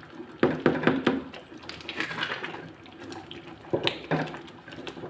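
A spatula stirring thick, hot gajrela (carrot, rice and milk pudding) in a kadhai: wet squelching and scraping, with a few sharp clicks of the spatula about half a second in and again near four seconds.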